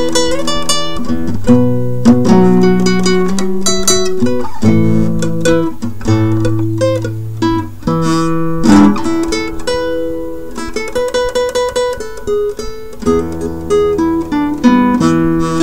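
Background music: an acoustic guitar playing plucked notes and chords, with the chords changing every second or so.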